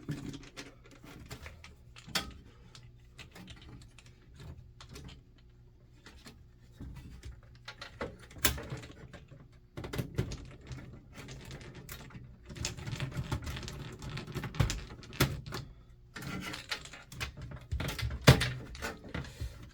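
Hands working wires at a security alarm panel: scattered small clicks, taps and scrapes, busier in the second half, with a sharper knock near the end.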